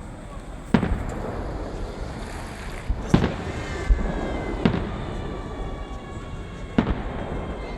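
Fireworks salute: shells bursting with sharp bangs, about six at uneven intervals, over a steady background rumble, with faint thin high whistling tones in the second half.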